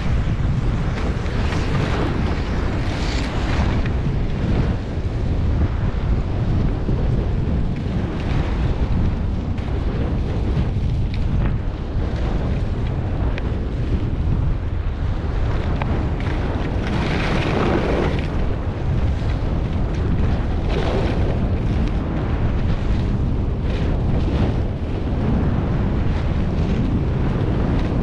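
Wind buffeting the microphone of a camera carried by a downhill skier: a steady loud low rumble, with a few louder rushing swells a few seconds in and again past halfway.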